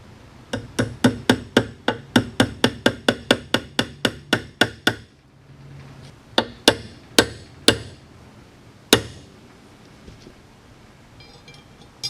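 A hammer tapping rapidly and evenly, about four to five taps a second for some twenty strokes, then after a short pause five slower, separate blows, the last about nine seconds in. The strokes fall while the rifle is being reassembled.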